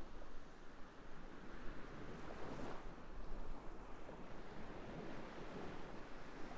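Soft, steady rushing of waves washing in, a background nature-sound track, swelling slightly about two and a half seconds in.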